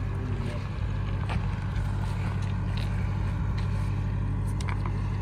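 A steady low hum with a few faint clicks and knocks, like stones shifted underfoot on a rocky bank.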